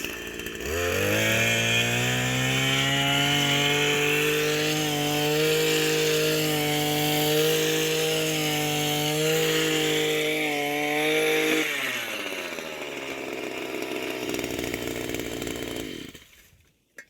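Gas-powered post-hole auger's small engine revving up from idle about a second in and held at high speed for about ten seconds, with small dips in speed. It then drops back to idle and shuts off near the end.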